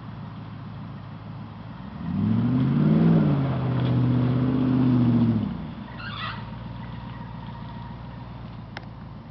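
V8 engine of a 4x4 idling, then revving up about two seconds in and held under throttle for about three seconds before dropping back to idle.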